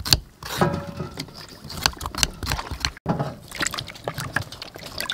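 Knife blade scraping the skin off a green gourd in quick, clicking strokes. About three seconds in this gives way to hands swishing and sloshing vegetables in water in a steel basin.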